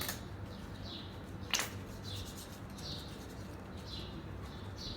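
A bird chirping repeatedly, a short high call about once a second, with one sharp click about one and a half seconds in.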